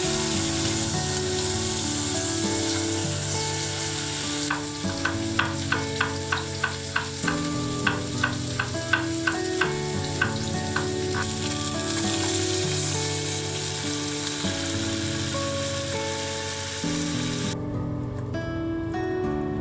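Food sizzling as it fries in a pan, a steady hiss that cuts off near the end, over soft background music. Partway through comes a run of light, evenly spaced ticks.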